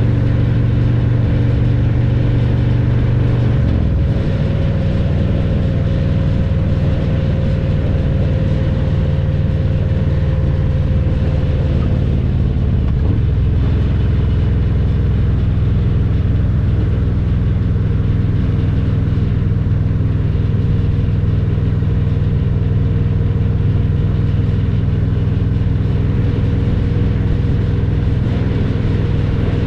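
2022 Harley-Davidson Road Glide Special's Milwaukee-Eight 114 V-twin running on the road through a Vance & Hines Power Duals header and Cobra Neighbor Hater slip-on mufflers. The engine note steps to a new pitch about four seconds in and again about thirteen seconds in.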